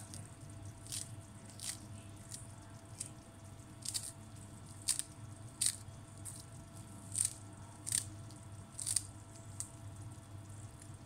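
Pinches of chopped fresh parsley dropped from the fingers onto minced meat in a bowl: about a dozen short, crisp rustles at uneven intervals, over a faint steady hum.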